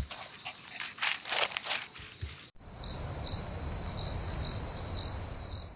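Cricket chirping: a steady high trill with louder chirps about twice a second over a low rumble, starting suddenly about halfway through, after a few seconds of scratchy rustling.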